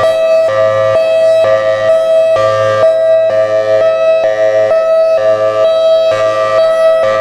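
Federal Signal Thunderbolt 1003 outdoor warning siren sounding its hi-lo signal: a loud two-tone wail that switches back and forth between a high and a low pitch about every half second.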